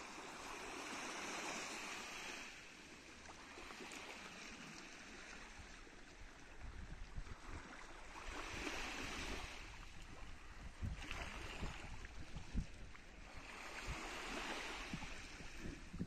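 Sea waves washing in, swelling and fading about every six seconds. From about halfway through, wind rumbles and buffets on the microphone.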